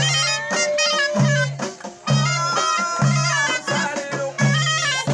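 Moroccan aita abdiya folk music: an ornamented melody line that steps and slides between notes, over a repeating low beat of hand-held frame drums.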